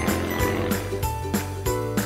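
Upbeat intro jingle music with a steady beat of about three a second over a bass line and held notes.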